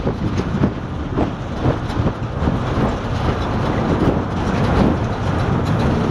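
Recovery vehicle on the move: steady road and engine noise with irregular rattling and knocking from the body and its load.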